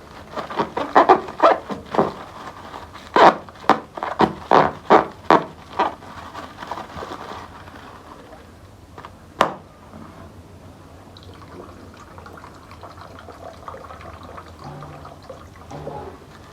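Plastic bag packaging crinkling and rustling as it is handled and opened, in a quick run of sharp crackles over the first six seconds. One more sharp crackle comes about nine and a half seconds in, then only faint handling noise.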